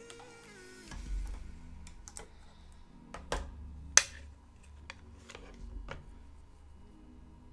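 Soft background music with scattered sharp clicks and taps from makeup products being handled, the sharpest about four seconds in.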